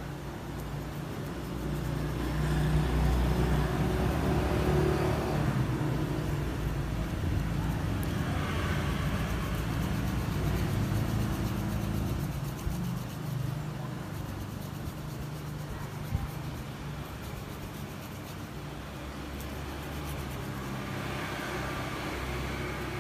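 Low, steady engine hum, like a motor vehicle running, swelling over the first dozen seconds and then easing off, with soft rustling on top.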